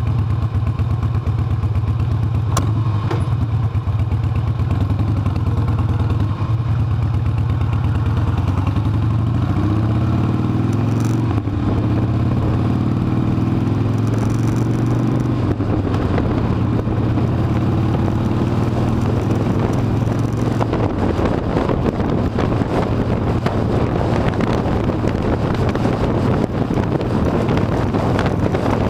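Harley-Davidson V-twin motorcycle engine running on the road. The engine pitch climbs as the bike accelerates, from about a third of the way in until about halfway. Wind noise then rises and partly covers the engine in the second half.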